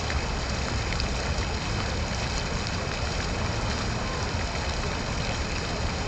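Fountain water splashing and pouring steadily into its basin, with a low rumble underneath.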